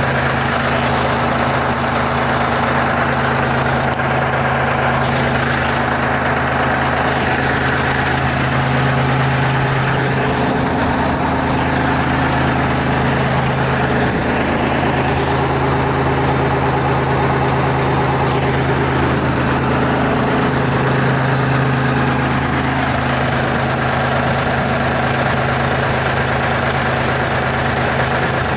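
Diesel engine of a Terex R-35 rigid haul truck idling steadily, its pitch shifting slightly now and then around the middle.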